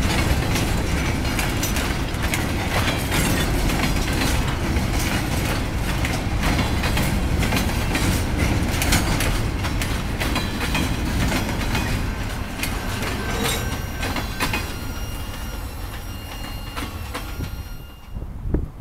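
CSX freight train cars rolling past, a steady low rumble with dense clickety-clack of wheels over rail joints. It fades over the last several seconds as the end of the train goes by, with a few thin, high wheel-squeal tones as it dies away.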